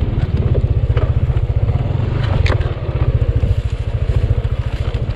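Trail motorcycle engine running at low, steady revs close to the microphone, its fast even beat unbroken, with a single sharp click about two and a half seconds in.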